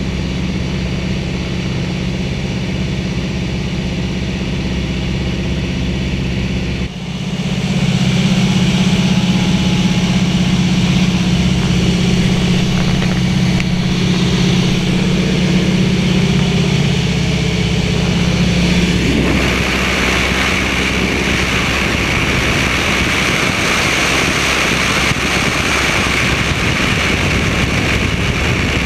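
Small floatplane's piston engine and propeller droning steadily in flight, with wind rushing past. The sound dips briefly about seven seconds in and comes back louder, and at about nineteen seconds the low drone gives way to more wind hiss.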